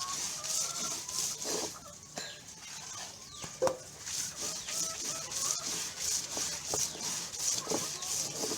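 Stone roller rasping back and forth over a traditional ammikkallu grinding stone, crushing coconut chutney by hand in repeated strokes. Short pitched calls, like hens clucking, sound in the background.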